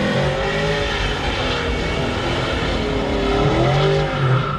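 A car engine revving hard, its pitch rising and falling twice, with the rush of spinning tyres as the car swings round doing donuts.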